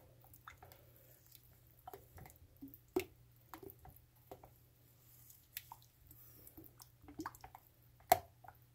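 A wooden stick stirring thick raw soap batter in a glass bowl, working in fragrance oil: soft wet squishing with scattered light knocks of wood on glass, the sharpest about three seconds in and again near the end. A faint steady low hum lies underneath.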